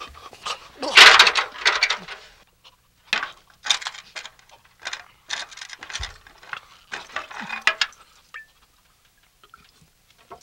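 Handling of a glass jar of pickle juice as it is opened and tipped up for drinking: irregular clinks, scrapes and sloshing, with a dull thump about six seconds in.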